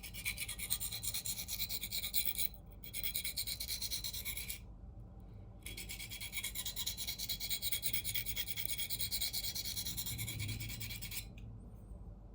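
Steel knife blade (CPM 4V) scraped in quick repeated strokes across a coarse 325-grit diamond sharpening plate, a rasping grind with two short pauses, stopping near the end. This is reprofiling the edge to raise a burr.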